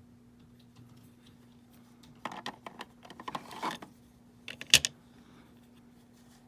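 Hard plastic graded-coin holders clicking and clattering as they are handled. There is a cluster of clicks and rubbing about two seconds in, then one sharp click a little later.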